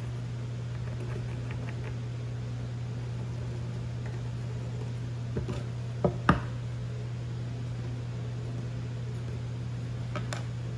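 A small metal toggle clamp knocked twice against a wooden workbench as it is set down, about six seconds in, over a steady low hum; a couple of faint clicks come near the end.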